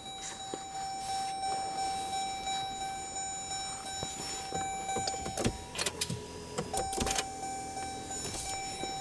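Vehicle warning chime sounding as a steady high electronic tone from the car, which is switched on with the door open. About five and a half seconds in come a couple of sharp clicks, and the tone briefly gives way to a lower one before resuming.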